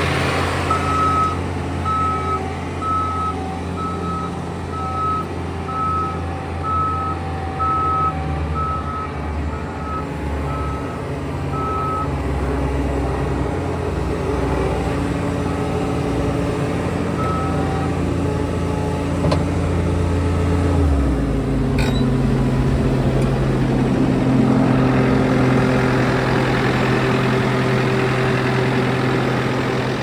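Bobcat T76R compact track loader's 74 hp diesel engine running, with its reverse alarm beeping about once a second for the first twelve seconds. About two-thirds of the way in, the engine note steps up and then holds steady.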